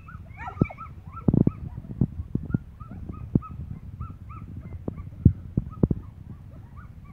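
A young German Shepherd whining and yipping in quick, short, high-pitched cries, the excited whining of a dog held back on its leash as the decoy comes near. A few sharp low thumps break in, the loudest about a second and a half in and again near five seconds.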